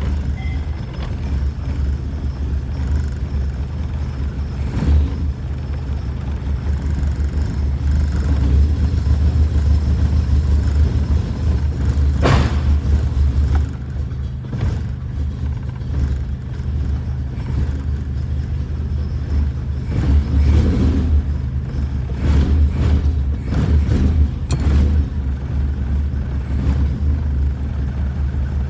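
A 1992 VW Voyage's 1.8-litre four-cylinder engine running after a hard start. It hums steadily, rising in level for a few seconds, dropping off suddenly about halfway through, then swelling again. A couple of sharp clicks are heard over it.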